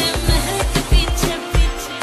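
Background music with a heavy, steady bass beat.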